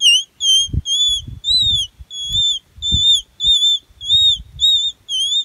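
Palmyra palm leaf whistle: a torn strip of palm leaf held to the lips and sounded by drawing air inward, giving a string of short, high, bird-like chirps about two a second, each bending slightly up and down in pitch.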